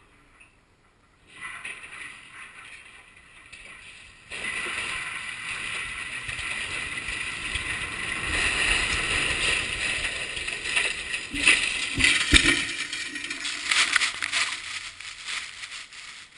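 A tall steel radio tower collapsing during demolition: a rushing, rattling noise builds and grows louder, then heavy crashes about eleven and twelve seconds in as the structure hits the ground, followed by more clattering.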